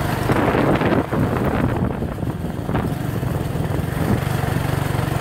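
Small engine of an off-road vehicle running steadily as it is ridden along a dirt track.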